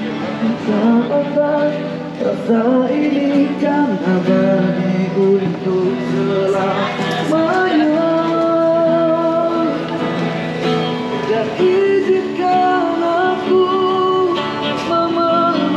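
A man singing a Malay-language ballad with acoustic guitar accompaniment, the melody held in long sung notes.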